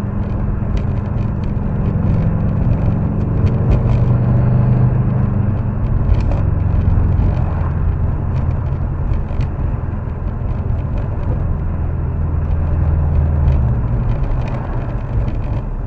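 Subaru WRX STI's turbocharged flat-four engine and road noise heard from inside the cabin while driving. The engine's low hum rises in pitch for a few seconds, holds steady, and then falls away near the end, with scattered small clicks and rattles.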